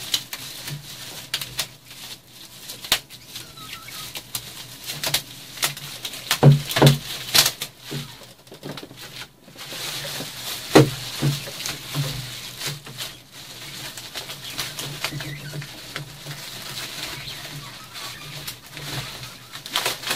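Plastic bubble wrap and packaging crinkling and rustling as it is pulled off a light stand, with many sharp crackles and a few louder knocks.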